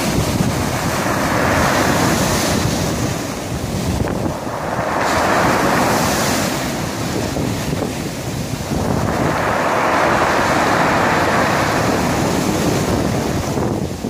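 Sea surf breaking and washing over a pebble beach, surging and easing three times, with wind rumbling on the microphone.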